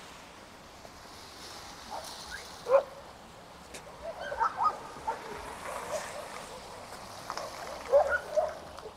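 A dog barking in scattered short bouts, loudest about three seconds in and near the end, over a steady hiss of rain.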